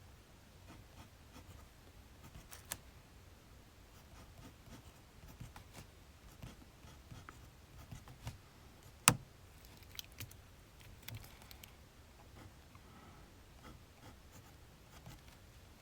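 Pen writing on paper: faint, intermittent scratching strokes with light ticks. There is a clear tap about three seconds in and one sharp click a little past halfway, the loudest sound.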